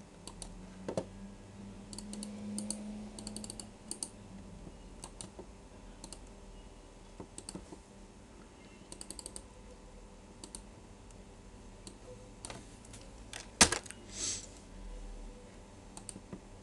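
Computer keyboard keys and mouse buttons clicking in short, scattered bursts, with one much louder click about three-quarters of the way through.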